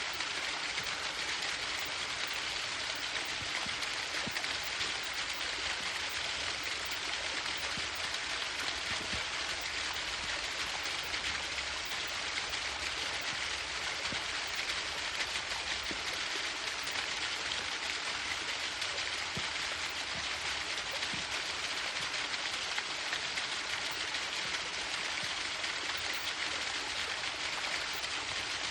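Waterfall: a steady rush and splash of falling water, even and unbroken, with a bright hiss like heavy rain.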